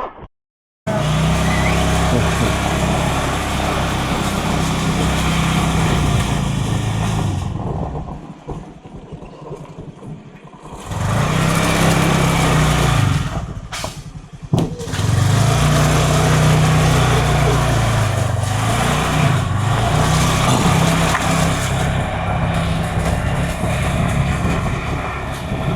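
Motor vehicle engine running while driving, its pitch rising and falling several times as it speeds up and eases off, with a steady rush of road and wind noise. It cuts out briefly right at the start.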